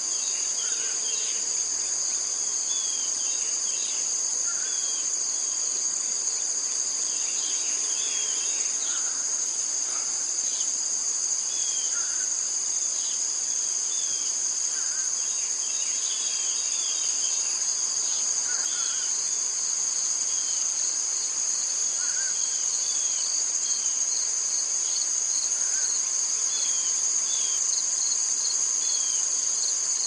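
Summer morning ambience: a steady, high-pitched chorus of crickets, with short bird chirps every second or two.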